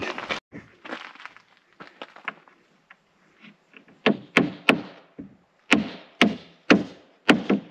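Claw hammer nailing OSB sheathing onto a wooden gable truss: a few light taps, then from about four seconds in seven sharp blows, about two a second.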